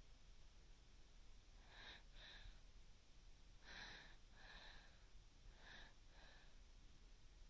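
Faint, slow breathing: three breaths about two seconds apart, each a short in-breath followed by an out-breath.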